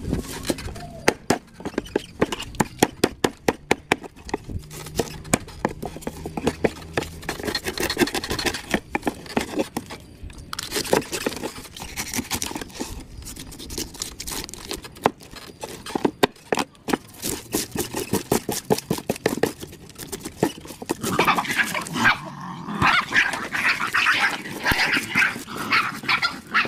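Large curved knife scraping scales off a big fish on a wooden board, in rapid repeated strokes, about three or four a second in the first few seconds, with denser spells of scraping later on.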